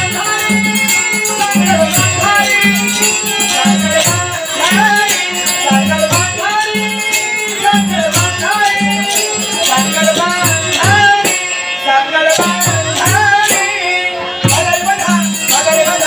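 A man singing a Marathi Dashavatar folk-theatre song with a wavering, ornamented melody. Behind him a drum keeps a steady beat of about two strokes a second, with jingling hand cymbals.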